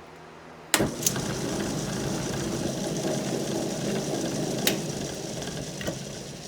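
Wood lathe switched on with a sharp click about a second in, then running with a square 2x4 blank spinning and being roughed toward round, a harsh even rush with a few sharp knocks. It eases off near the end.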